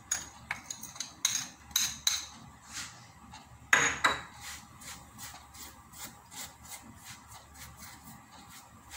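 Metal spoon clinking against a small container and tapping on a nonstick frying pan as za'atar topping is scooped and spread over flatbread dough. A louder clatter comes about four seconds in, followed by a steady run of light taps as the topping is spread.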